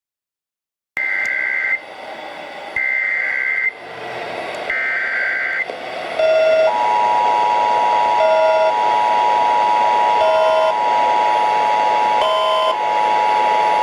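Emergency Alert System test received over AM radio: three short bursts of screechy two-tone SAME header data, then, about six and a half seconds in, the steady two-tone EAS attention signal begins. Radio hiss runs underneath, and a separate short beep repeats about every two seconds.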